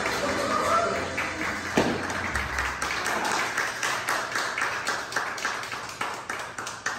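Dance music with a singer over a bass line, which gives way about two seconds in to a dense patter of clapping.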